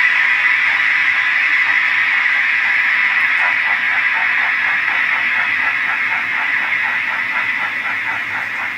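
Sound-decoder steam engine effects from a model Ivatt 2MT: a loud, steady steam hiss. From about three and a half seconds in, soft exhaust chuffs at roughly three a second come through as the hiss eases.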